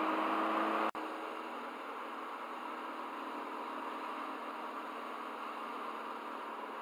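Steady hiss of a car driving, engine and road noise picked up by a dashcam microphone inside the cabin. It cuts out for an instant about a second in and carries on quieter and more even.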